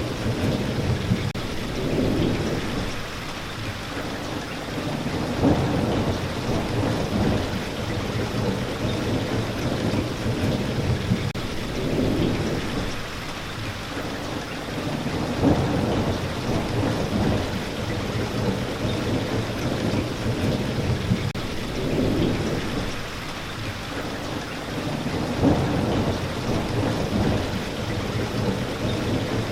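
Steady rain falling, with low rolling thunder rumbles that swell and fade every few seconds.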